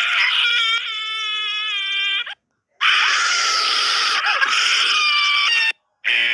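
A high-pitched wailing, shrieking voice sound effect in two long bursts with a short break about two seconds in; the second burst is harsher and noisier. A different sound starts just at the very end.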